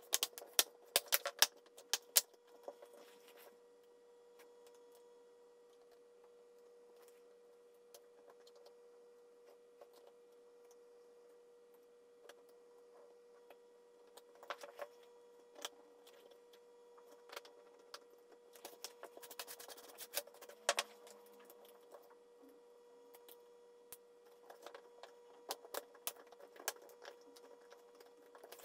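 Small plastic and metal clicks and taps of laptop case parts being handled and fitted back together, in scattered clusters: a burst of sharp clicks near the start, a few about halfway, and more in the last few seconds. A faint steady tone hums underneath throughout.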